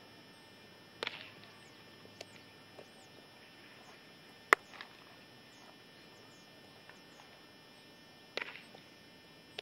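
Baseball infield practice: a few sharp cracks of bat on ball and ball smacking into a leather glove, about a second in, midway and near the end, the one midway the loudest. Birds chirp faintly.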